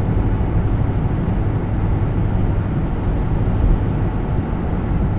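Nissan Sentra driving along a road, heard from inside the cabin: a steady rumble of engine and tyre noise.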